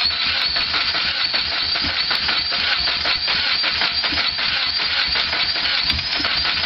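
The 2000 Chevy Tracker's 2.0-litre four-cylinder engine being cranked over by its starter, a steady fast rhythmic churn that does not catch and run, on its first start after a timing chain replacement.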